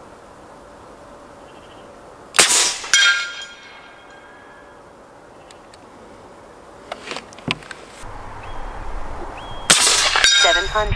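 Gunpower Texan .50-calibre big-bore air rifle firing with a loud crack and a short metallic ringing, then a second sharp crack about half a second later. A few light clicks follow, and another loud shot with ringing comes near the end.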